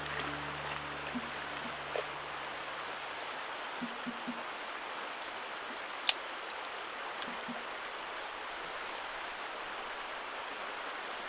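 Steady rushing of a stream's flowing water, with a few faint clicks and one sharp click about six seconds in.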